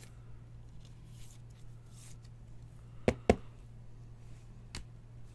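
Trading cards and a clear plastic top-loader being handled on a table: a faint rustle, two sharp taps close together about three seconds in and a lighter one near the end, over a steady low hum.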